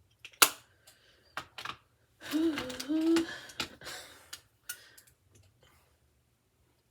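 Clicks and taps of small makeup items being handled, with a sharp snap about half a second in and a few more clicks after. In the middle comes a short wordless voice sound whose pitch rises and falls.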